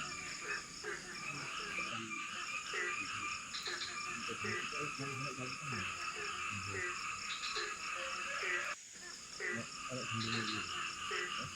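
Dense chorus of many frogs calling at night, short croaks overlapping at several pitches. The chorus cuts off briefly about three-quarters of the way through, then resumes.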